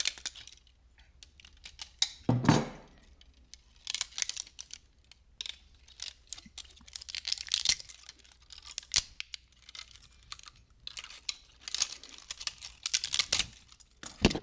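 PLA support material on a 3D-printed part being snapped and peeled off with pliers: irregular clusters of sharp plastic cracks and clicks, with a duller thump about two and a half seconds in.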